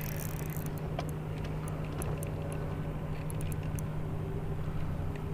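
Steady low hum of a boat motor, holding one even pitch, with faint light ticks scattered over it.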